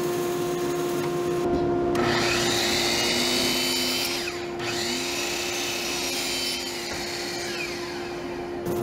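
Power saws cutting a round hardwood blank: a band saw running, then a miter saw cutting through the stock in two stretches and its blade winding down with a falling pitch near the end.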